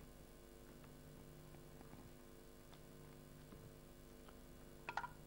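Near silence: a steady low electrical hum with a few faint clicks, and two or three sharper clicks near the end.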